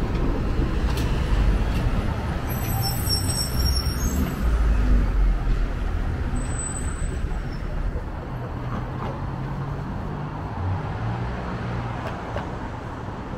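City street traffic: the low rumble of vehicle engines, loudest about four to five seconds in, then settling into a steadier engine hum.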